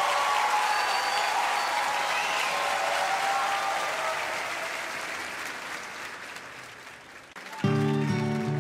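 Concert audience applauding and cheering at the end of a live song, fading out over several seconds. Near the end an acoustic guitar starts strumming a song's intro.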